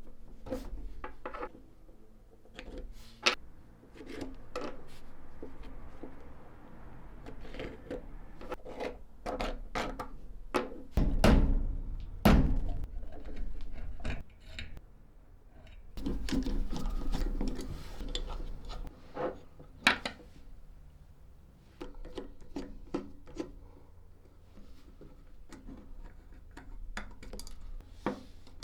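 Hands working on the tin and aluminium parts of a Felix M mechanical calculator: irregular clicks, knocks and rubbing, with two louder stretches of rubbing, around a third of the way in and just past halfway.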